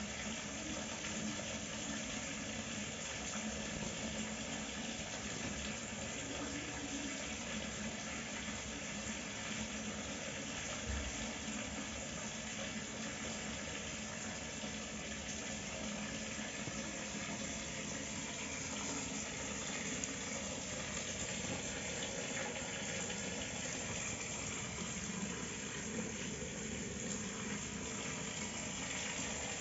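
Water gushing steadily from a pond spout fed by an electric water pump and splashing into the pond, a strong, even flow throughout.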